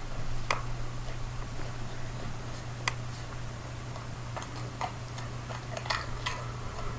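German shorthaired pointer crunching potato chips: a handful of sharp, irregular crunches a second or so apart, over a steady low hum.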